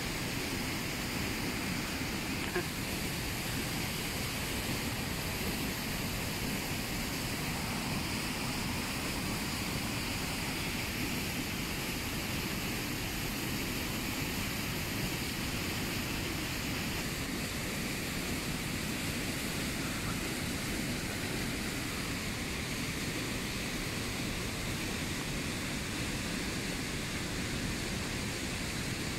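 Fast-flowing river rushing steadily over shallow rapids, with a single small click about two and a half seconds in.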